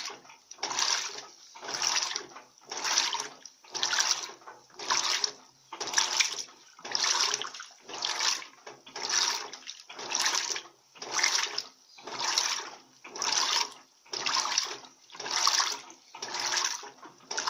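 Turbo Economia LTD15 15 kg top-loading washing machine agitating a load of towels in water: the water sloshes in a regular surge about once a second as the agitator swings back and forth.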